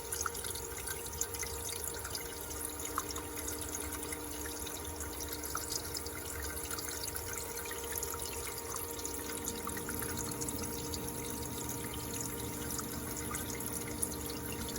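Electrolyte trickling and fizzing with gas bubbles at the electrode of a running electrochemical machining setup, with scattered small ticks over a steady hum. A low rumble gets louder about ten seconds in.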